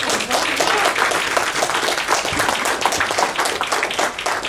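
Audience applauding: dense clapping from many hands.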